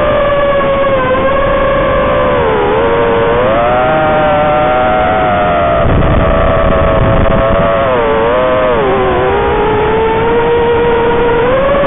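FPV quadcopter's brushless motors whining, the pitch rising and falling as the throttle changes through the flight. Around six seconds in a brief low rushing noise comes in under the whine.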